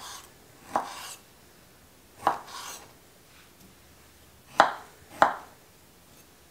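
Kitchen knife cutting small apricots on a wooden cutting board: five separate knocks of the blade reaching the board, each with a short scrape after it, at uneven intervals, the two loudest near the end about half a second apart.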